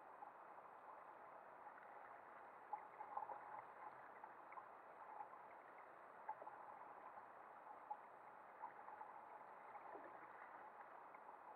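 Near silence: faint steady water noise around a fishing kayak, with a few small scattered ticks.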